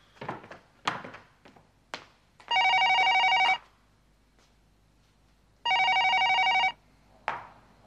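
Telephone bell ringing twice, each ring about a second long with a fast rattle. Footsteps on a hard floor are heard before and between the rings.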